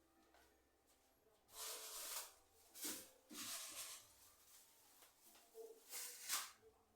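Faint rustling handling noises in four short spells, each about half a second long.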